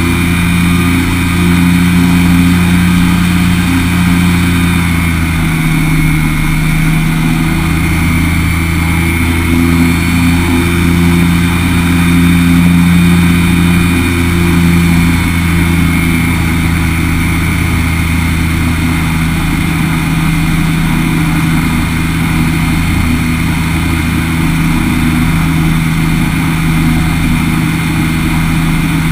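Ultralight trike's engine and pusher propeller running steadily in flight, a constant drone with a brief dip in tone about six seconds in.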